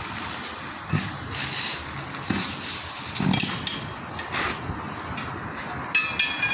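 Steel tyre irons knocking and scraping against a steel truck wheel as a tyre is levered off the rim: several dull knocks, then a ringing metal clang near the end.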